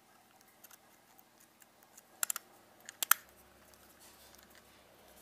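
Small plastic clicks from the parts of a Canon EF 50mm f/1.8 II lens being handled and fitted together: three quick clicks about two seconds in, then two sharper ones about a second later, over faint handling noise.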